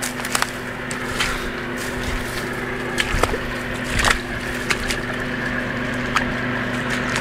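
Off-road 4x4's engine running steadily as it crawls through deep mud and water, with scattered sharp knocks and cracks over it.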